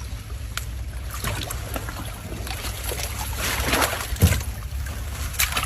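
Water sloshing and splashing, with scattered small knocks, and a louder splash about three and a half seconds in.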